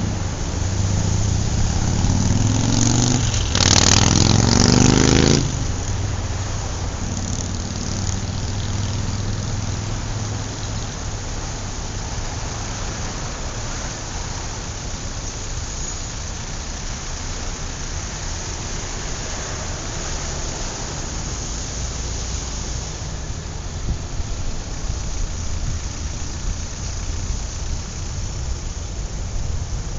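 Road traffic: a motor vehicle's engine revs up with rising pitch and passes loudly about three to five seconds in. Steady road noise follows.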